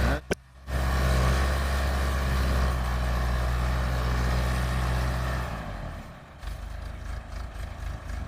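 A vehicle engine running steadily with a low hum. It cuts out briefly about half a second in and drops away after about five and a half seconds.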